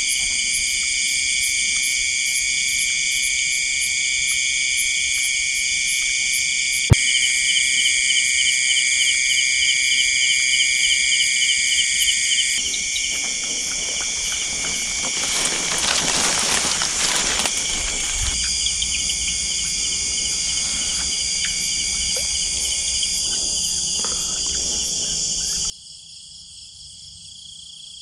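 Night chorus of crickets and other insects: steady, high-pitched trilling, with a faster pulsing trill joining for about five seconds a quarter of the way in. A single click about a quarter of the way in and a few seconds of louder hiss-like noise around the middle. The chorus cuts off abruptly near the end.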